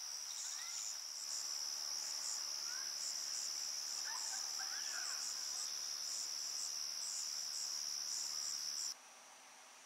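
Night insect chorus of crickets: a steady high trill with a sharper chirping above it, about two or three chirps a second. It cuts off abruptly near the end.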